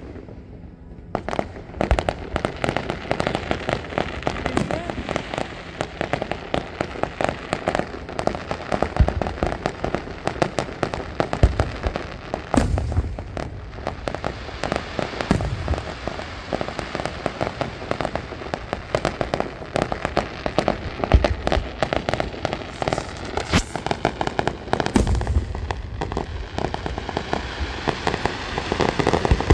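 Fireworks display: aerial shells going off with deep booms every few seconds over near-continuous dense crackling, which starts about a second in.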